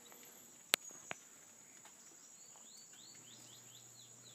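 Steady high-pitched insect drone, with two sharp clicks about a second in and a run of about eight quick high chirps in the second half.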